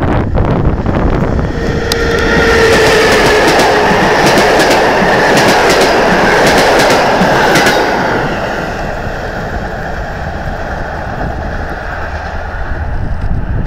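EU07 electric locomotive and its passenger coaches passing at speed: a loud rushing rumble with wheels clicking over the rail joints builds over the first two seconds and holds. About eight seconds in it fades as the train draws away.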